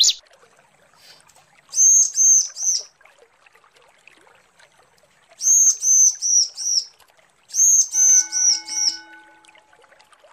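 Female bar-winged prinia (ciblek) calling males: three bursts of quick, high, repeated chirps, three to five notes in each, a few seconds apart.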